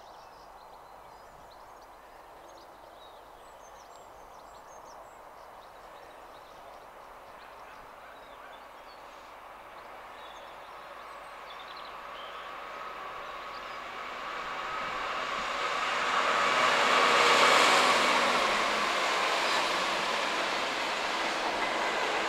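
Class 66 diesel locomotives' two-stroke V12 engines and the wheels of a loaded ballast train, faint at first and growing steadily louder as the train approaches. The sound is loudest about three-quarters of the way in as the locomotives pass close by, then stays loud.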